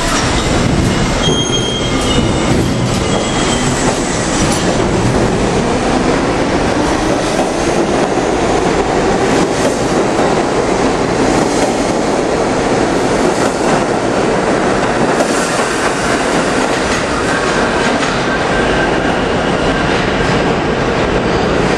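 R-32 subway train pulling out of an underground station, its running noise steady and loud as the cars move past and gather speed.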